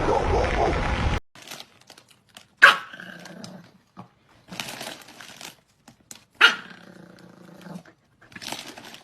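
A dog barking: two sharp, loud barks, about two and a half and six and a half seconds in, each trailing into a drawn-out low sound. Before them, a loud noisy stretch cuts off suddenly about a second in.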